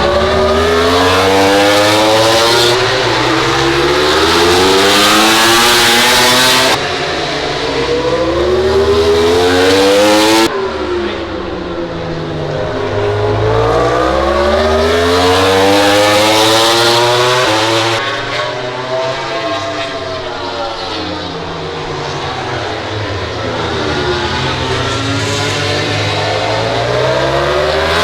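MotoGP racing motorcycles' four-cylinder engines at high revs, climbing in pitch in a series of steps as they change up through the gears, and dipping and rising again several times. The sound changes abruptly three times.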